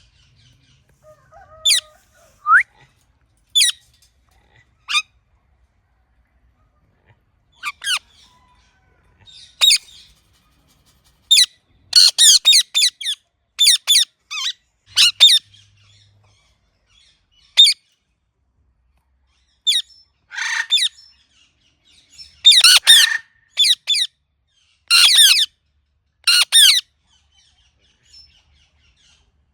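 Ringneck parrot giving short, shrill squawking calls. At first they come singly, a few seconds apart; quick runs of several calls follow about halfway through and again near the end.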